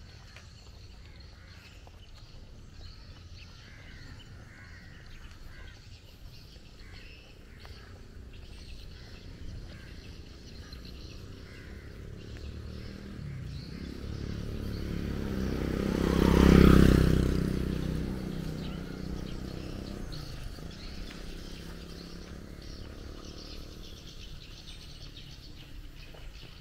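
A motor vehicle passes close by. Its engine builds over several seconds, is loudest about two-thirds of the way in, then fades away. Faint birds and insects chirp in the background.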